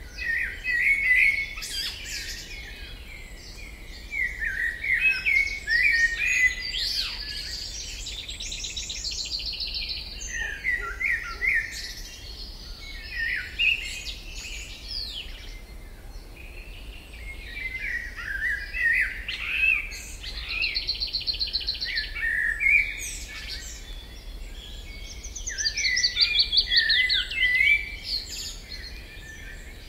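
Several songbirds singing at once: overlapping chirps and whistles, with a fast, evenly pulsed trill every few seconds.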